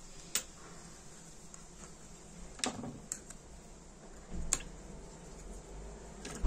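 Tweezers and small metal lighter parts clicking and tapping against a small plastic cup: a handful of sharp light clicks a second or two apart, the loudest about two and a half seconds in, with soft handling noise between.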